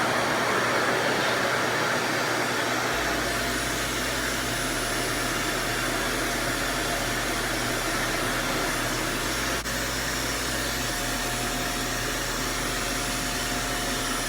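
RevAir reverse-air hair dryer running steadily, its suction drawing a section of hair into the wand: an even rush of air with a faint high whine.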